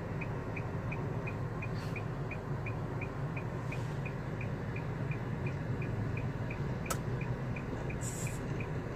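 Steady low road and engine noise inside a moving car's cabin. A faint, even ticking about three times a second runs under it, with a few brief clicks.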